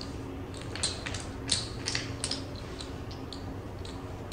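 Clay casino chips clacking against each other as they are stacked and handled on a blackjack table: a string of sharp, irregularly spaced clicks over a low steady hum.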